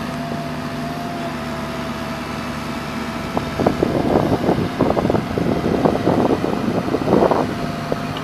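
Bobcat E45 compact excavator's diesel engine running steadily. From about three and a half seconds in, a run of irregular clanks and rattles as the machine works.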